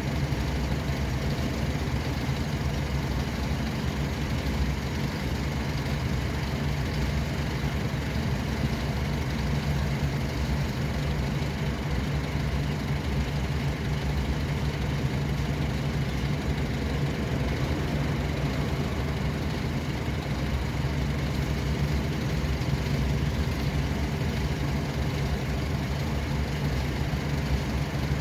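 Steady low engine drone and road noise of a vehicle on the road, without change or distinct events.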